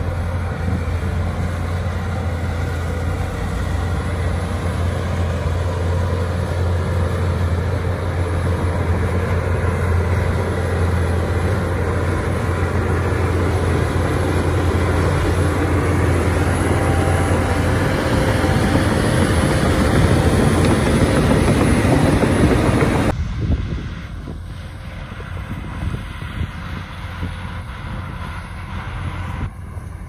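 Shantui DH17 C2 bulldozer running under load as it pushes a pile of earth and stone, growing louder as it comes close. About three-quarters of the way through the sound drops suddenly to a fainter machine sound from farther off.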